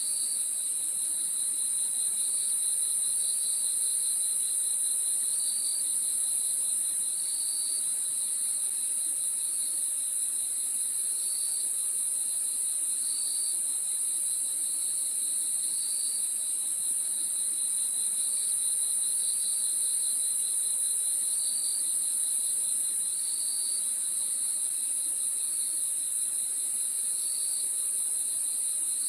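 Crickets chirping: a steady, very high trill over a lower, rapidly pulsing chorus, with short chirps repeating every one to two seconds.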